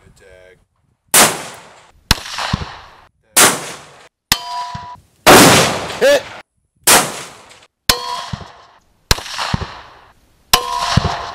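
A rapid edited series of about ten heavy rifle shots from a TrackingPoint precision-guided bolt-action rifle, each trailing off in an echo. Several are joined by the ringing clang of bullets striking steel plate targets.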